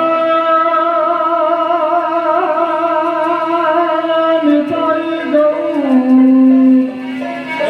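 A song with a voice holding long, slightly wavering notes that step down in pitch after about four and a half seconds, played through a PA monitor speaker.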